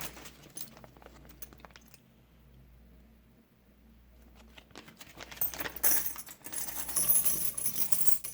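Loose silver coins clinking and jingling against each other as a pile is handled and poured out: a few scattered clinks at first, a lull, then a dense run of clinking in the last few seconds.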